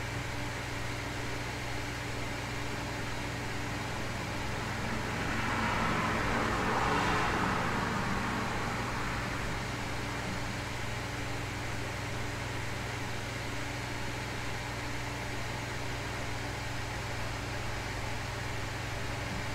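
Steady hiss of white and pink noise over a low, constant hum. A car passes by about five seconds in, swelling and fading away over some four seconds.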